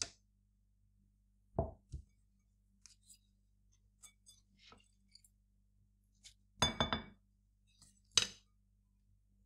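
Kitchen handling of a glass mixing bowl on a wooden tabletop: two low thuds about a second and a half in as the bowl is set down, then a wooden spoon knocking against the glass bowl full of wet quinoa, a quick cluster of ringing clinks near the end and one more clink a second later.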